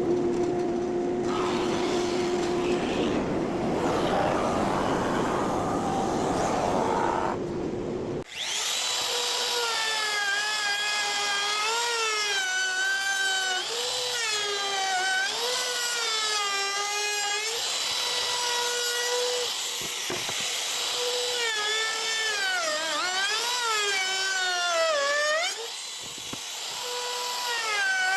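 Woodworking power tools working wood. First comes a noisy cutting sound; after an abrupt change about eight seconds in, a high-pitched motor whines, its pitch sagging and recovering again and again as the tool is loaded and eased off.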